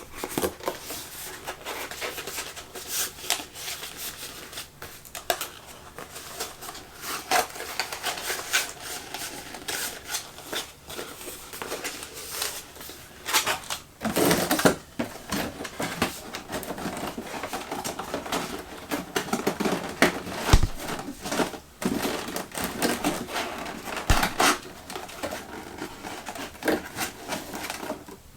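Thin cardboard being folded, creased and pushed into slots by hand: irregular rustling, crinkling and small clicks, louder in a few bursts.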